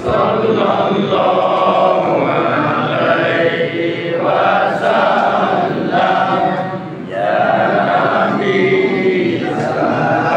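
A group of men chanting salawat on the Prophet together in unison, a sung Maulid recitation, with short breaks between phrases.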